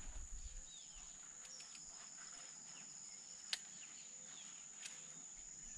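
Faint riverside ambience: a steady high-pitched insect drone with a few faint short bird chirps. A single sharp click comes about halfway through.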